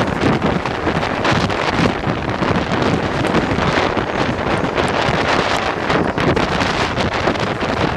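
Wind buffeting the microphone at the open doorway of a Siemens EMU suburban electric train running at speed, with the train's running noise underneath. Loud and steady throughout.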